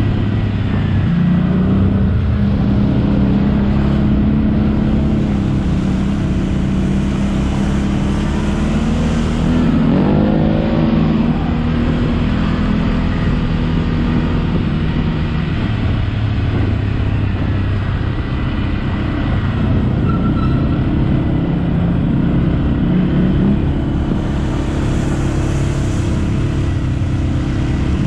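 ATV engine running loudly under throttle. Its pitch steps up about a second in, and it revs up and back down around ten seconds in.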